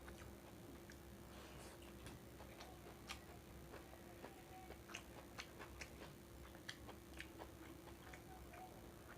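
Faint eating sounds as fried rice is chewed: small irregular clicks, several a second, over a faint steady hum.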